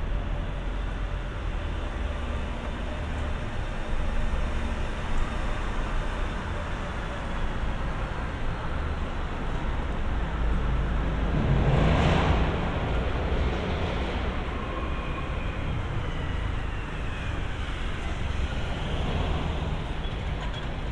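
City street traffic: a steady road rumble, with one vehicle passing close and swelling loudest a little past the middle.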